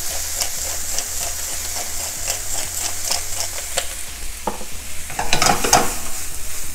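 Wooden spatula stirring and scraping cockle meat around a frying pan, over a steady frying sizzle; the scraping strokes come thicker about five seconds in.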